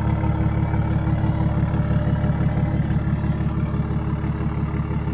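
2011 BMW 335d's 3.0-litre turbodiesel straight-six idling steadily just after a cold start, its exhaust running with a fast, even low pulse. It sounds like a truck.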